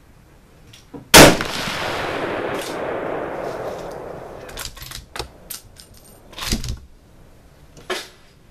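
A single shot from a Ruger American bolt-action rifle in .308 Winchester about a second in, with a long echo dying away over about three seconds. Several short clicks and a knock follow.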